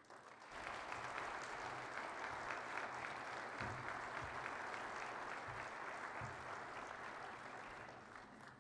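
Audience applauding. The clapping starts about half a second in, holds steady, then fades near the end.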